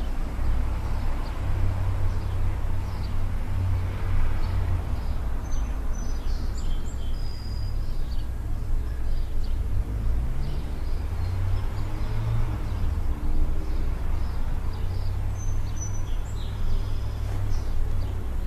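Outdoor city ambience: a steady low rumble of traffic, with a few short, high bird chirps in two brief clusters, about a third of the way in and again near the end.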